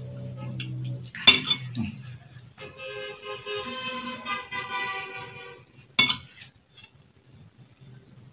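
A metal fork clinking and scraping against a plate, with two sharp clinks, one about a second in and one about six seconds in. Between them a steady pitched tone is held for about three seconds.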